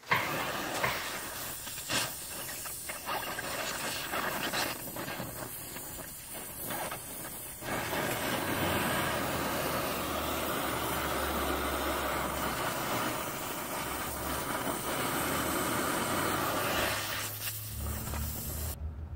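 Electric arc welding on car bodywork: a steady hissing crackle.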